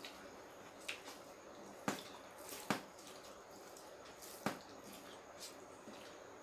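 Hands mixing rice and curry by hand on stainless steel plates: soft wet squishing with several sharp clinks against the metal, the loudest four spread over the first five seconds.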